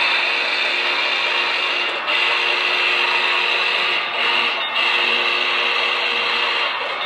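HO scale Union Pacific model train running past on the layout track: a steady mechanical whir of motors and wheels, with brief dips about every two seconds.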